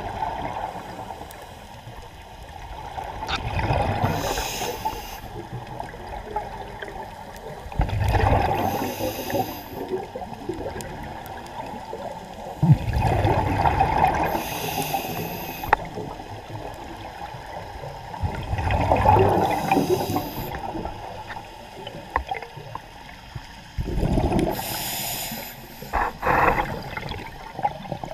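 Scuba diver breathing through a regulator underwater: a hiss on each inhale and a burst of rumbling exhaled bubbles, about once every five seconds.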